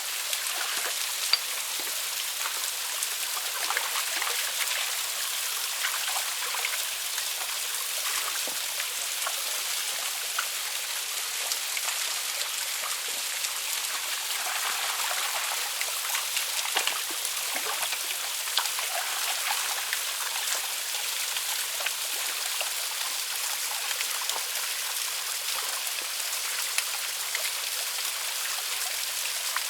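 Small waterfall and stream running steadily, with scattered drips and small splashes.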